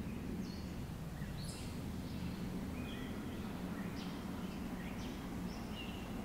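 Small birds chirping: short high chirps, a couple a second, over a steady low background hum.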